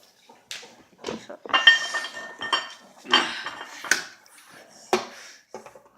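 Metal utensil scraping and clinking against a container of frozen homemade ice cream: two longer scrapes with a faint metallic ring, then a few sharp clinks.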